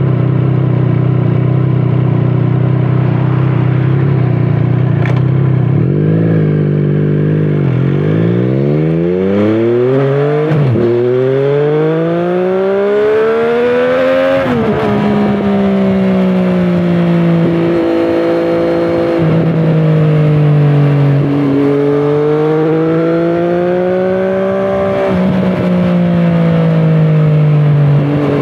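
2017 Triumph Street Triple 765RS inline three-cylinder engine through a Scorpion Serket Taper carbon exhaust. It runs steadily at a low pitch for about six seconds, then the revs climb with the pitch dropping back at upshifts around ten and fourteen seconds in, after which the engine note rises and falls with the throttle.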